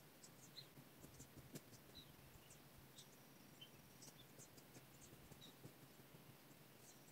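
Near silence: faint outdoor ambience with scattered short, high chirps and a few soft ticks.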